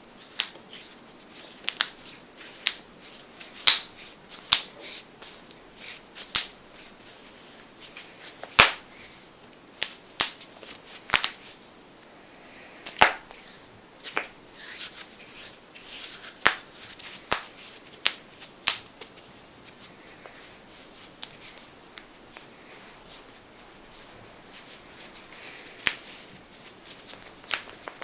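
Knuckles cracking: a long run of sharp, irregular pops, some loud and some faint. They thin out for a few seconds past the middle and pick up again near the end.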